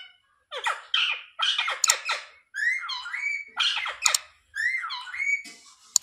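Rose-ringed parakeet squawking in a quick run of short harsh calls, a few of them dipping and rising in pitch.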